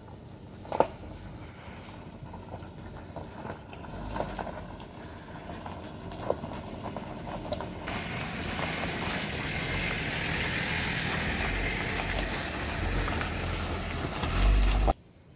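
Jeep Wrangler Unlimited's 3.6-litre V6 running at a low crawl as the vehicle creeps over a rocky trail, with its 33-inch tires crunching over rock and gravel and a few sharp knocks of stones. The sound grows louder as it comes close, with a deep rumble building near the end before it cuts off suddenly.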